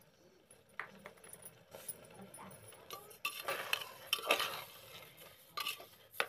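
Metal spatula scraping and clinking against the inside of an aluminium pressure cooker, stirring sugar into mashed carrot. It starts about three seconds in, after a couple of faint clicks.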